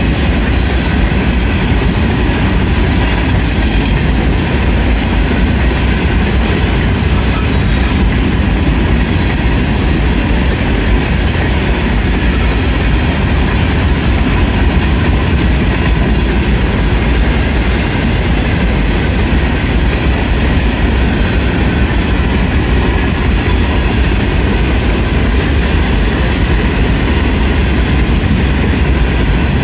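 Grain train's freight cars rolling fast past at close range: a loud, steady rumble of wheels on rail.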